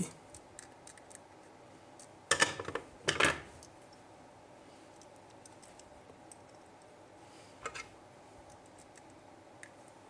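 Clicks and taps of a small plastic switch and screwdriver being handled while a wire is fastened to the switch's terminal screw. There are two louder clatters about two and three seconds in, a softer one near eight seconds, and faint ticks in between.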